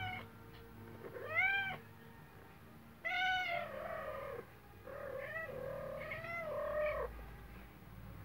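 Domestic cat meowing three times: a short rising-and-falling meow about a second in, then two longer, drawn-out meows that run almost together from about three to seven seconds in, the last one wavering in pitch.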